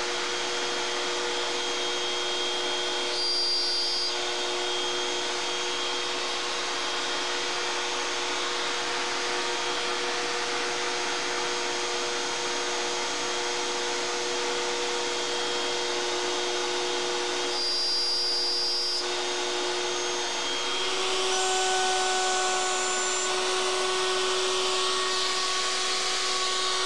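Electric router with a spiral cutter running steadily, cutting finger-joint slots in yew box sides. Its tone changes slightly about three-quarters of the way through.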